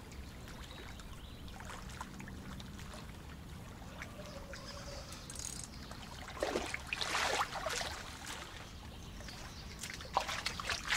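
Water splashing and trickling, with a louder splash lasting about a second around six and a half seconds in and a few sharp clicks near the end.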